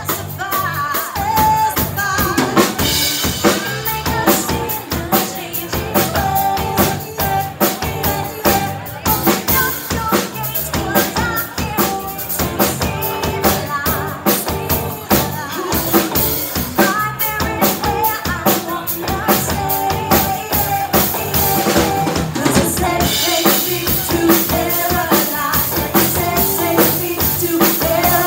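Live pop-rock band playing: a drum kit keeps a steady, busy beat under electric guitar and bass guitar, with women singing.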